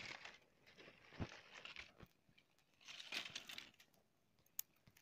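Faint rustling and crackling of dry twigs and dry palm leaves being handled, in three short bursts, with a sharp click a little over a second in and another near the end.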